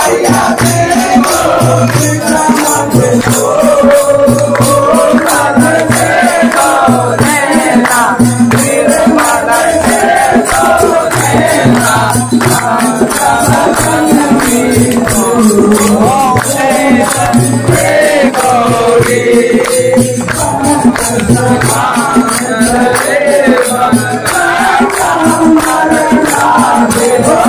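Devotional aarti music: group singing and chanting over a slow, steady drum beat, with hands clapping along.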